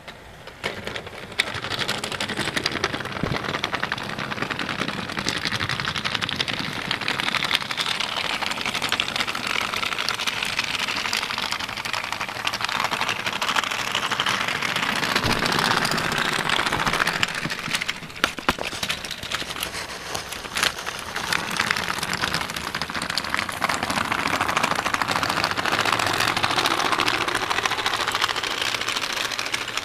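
Electric model train running on the layout's track: a steady, rapid mechanical clatter that swells louder and softer.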